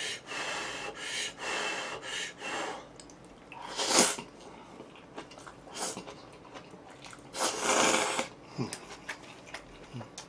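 A person slurping black-bean sauce instant noodles in noisy pulls, with a sharp slurp about four seconds in and a longer one near the end, and softer eating sounds in between.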